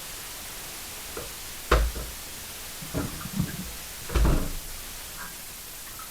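A handful of separate knocks and clunks, as of hard objects being handled or set down, the loudest just under two seconds in and about four seconds in, with smaller ones in between.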